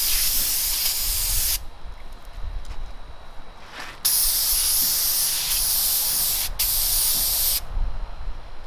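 Siphon-feed paint spray gun hissing on compressed air as it sprays epoxy paint, triggered in separate passes: one of about a second and a half at the start, then a longer one about four seconds in, broken by a brief pause.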